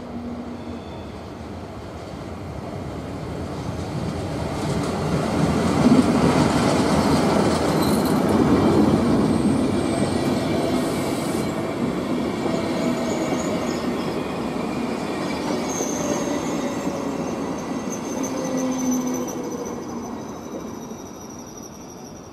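Locomotive-hauled SBB passenger train with white coaches running past along the platform track: a rumble and clatter of wheels on rails that builds over the first few seconds, stays loud through the middle and dies away near the end. Thin high-pitched squeals from the wheels come in during the later part.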